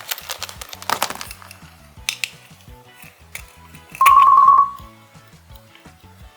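Background music with a steady bass line, over sharp crackling clicks of slime being worked in the first second. About four seconds in, a short loud single tone sounds for under a second.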